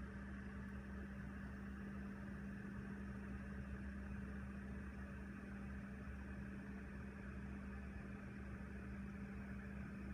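Sovol SV06 Plus 3D printer humming steadily during its auto Z-align routine, from its stepper motors and cooling fans.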